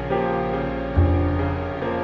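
Slow, sad background music with piano-like sustained chords; a deep bass note comes in about a second in.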